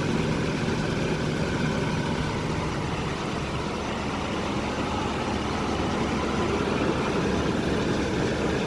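Nissan D21 Hardbody pickup's KA24E four-cylinder engine idling steadily, just after an oil change, running to circulate the fresh oil through the block and the new filter.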